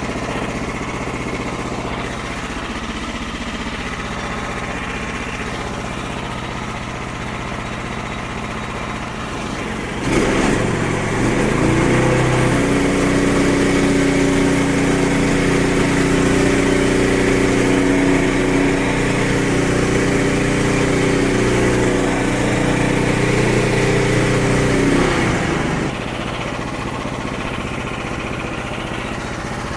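Frontier OS23 portable band sawmill's gasoline engine running steadily. About ten seconds in it speeds up to a louder, steady higher-power run, as when pushing the band blade through the log, and about fifteen seconds later it drops back to its lower running speed.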